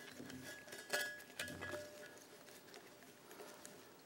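Faint handling noise: light clicks and rustles as insulated electrical wires are fed through a plastic conduit ell, with a couple of small knocks about a second in.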